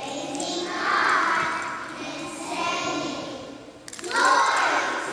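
A choir of young children singing together, with a short break near the end before a louder phrase.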